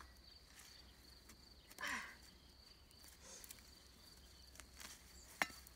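Hand tool working garden soil around plants: a short rustling scrape about two seconds in and a sharp knock near the end, over a faint steady high-pitched tone.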